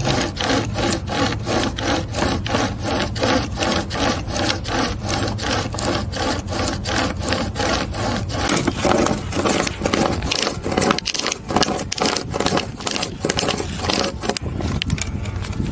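Pocket chainsaw (a length of saw chain with a handle at each end) pulled back and forth through a dry log: the chain's cutters rasp through the wood in a quick, even rhythm of strokes.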